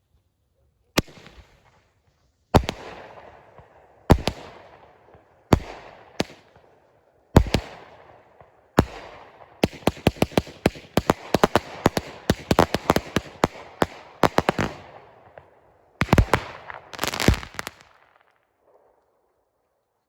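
A 200-gram consumer firework cake firing. Single shots come every second or so, each with a fading crackling tail. About halfway through they break into a rapid barrage of many shots, and two loud volleys near the end before it dies away.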